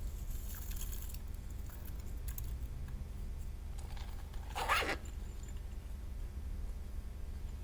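Slime being handled and squished by hand, with faint crackly clicks over a steady low hum and one louder squelch about four and a half seconds in.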